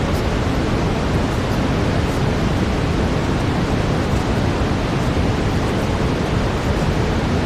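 Steady brown noise: an even hiss, heaviest in the low end.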